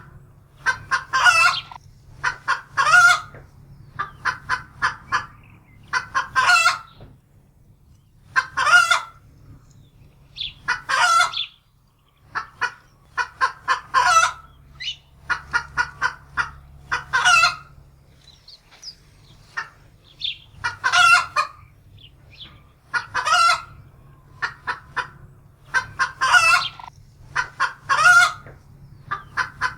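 Domestic hen cackling in alarm, a frightened hen's call: runs of short clucks, each ending in a drawn-out louder squawk, repeating every two to three seconds.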